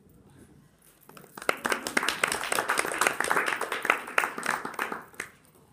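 Audience applauding: a round of hand clapping that starts about a second in and dies away near the end.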